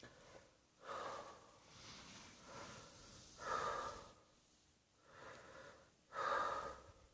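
A person breathing heavily, with a series of about five noisy breaths or gasps, each around half a second long. The loudest come about three and a half and six seconds in.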